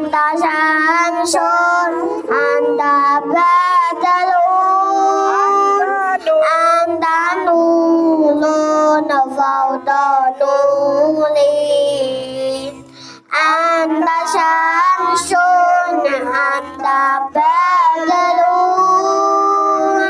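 A young boy singing a sholawat, an Islamic devotional song, into a microphone in long, wavering, drawn-out phrases, with a short breath break about 13 seconds in.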